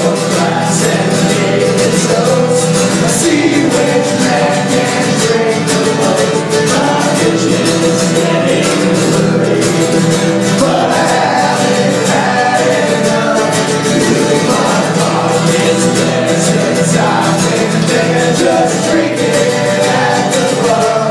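Live acoustic band playing: two acoustic guitars and a mandolin strummed, with several voices singing together.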